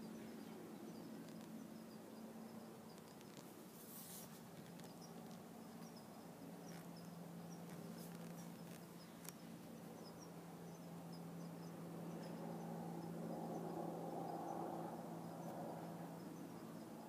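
Quiet ambience: a faint steady low hum, with soft, short high chirps repeating throughout and a few light clicks.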